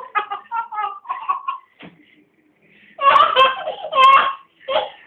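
Laughter in short bursts: a run of quick laughs in the first second and a half, then, after a pause, three louder bursts of laughter.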